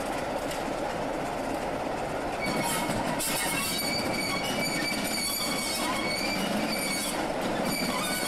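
A BR blue Class 26 diesel locomotive, coupled to a second diesel, runs slowly with its engine going steadily. From about two and a half seconds in, its wheels squeal on and off as they grind round the curve and pointwork.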